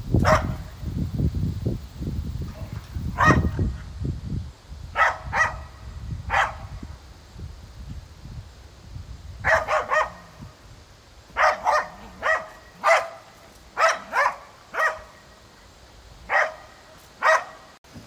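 A dog barking in a string of short, sharp barks, singly and in quick pairs and threes. In the first few seconds wind buffets the microphone with a low rumble.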